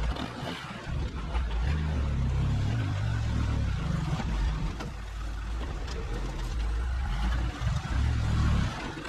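Engine running under load, its pitch stepping up and down.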